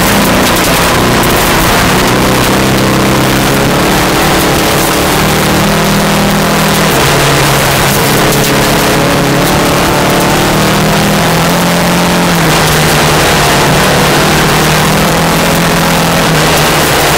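VW Beetle rally car's engine pulling hard at speed on a gravel stage. The engine note rises and falls several times, dropping about a third and two thirds of the way through. A steady rush of tyre and gravel noise runs under it.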